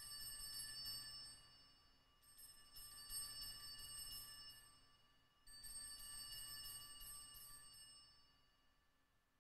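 Altar bells, a cluster of small bells, shaken in three rounds, each jangling ring fading away over two to three seconds: the first is already ringing at the start, the next begin about two and about five and a half seconds in. They mark the elevation of the chalice after the consecration at Mass.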